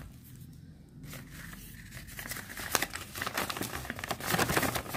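A paper invoice and a bubble-wrap parcel crinkling as they are handled and unfolded. It is faint at first and grows louder and busier after about two seconds.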